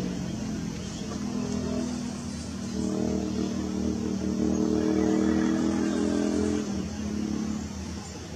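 A motor vehicle's engine going by: a steady hum that grows louder about three seconds in, holds, then fades away near the end.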